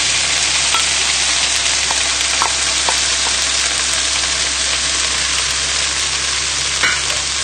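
Onions and mushrooms sizzling in a hot frying pan, a steady hiss, with the heat just turned off. A few light clicks of a wooden spoon scraping tuna out of a bowl into the pan.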